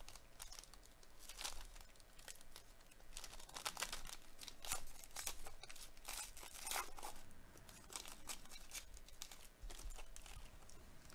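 Silver foil wrapper of a 2022 Topps Tier One baseball card pack being torn open and crinkled by hand, with soft, irregular crackling throughout.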